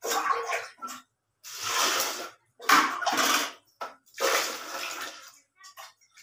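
Water poured from a steel bowl into a plastic bucket of white biri (hulled urad dal) being rinsed, splashing in several pours of about a second each.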